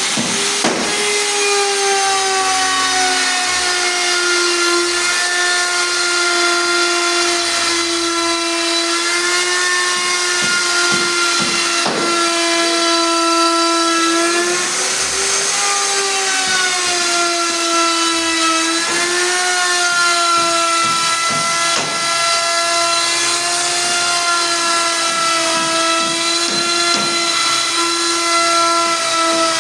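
Small electric motor running at a steady high-pitched whine, with its pitch dipping briefly about halfway through and again a few seconds later, and light scattered clicks underneath.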